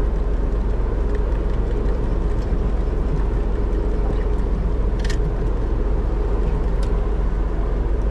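Steady wind buffeting the microphone on an open boat at sea, with a faint steady hum underneath and a sharp click about five seconds in.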